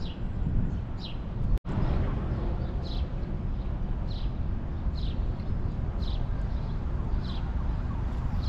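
A bird calling over and over: short, high notes that slide down, about one a second, over a steady low rumble. The sound drops out for an instant about a second and a half in.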